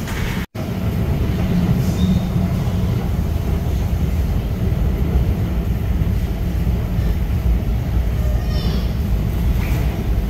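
Steady low rumble with a momentary dropout about half a second in.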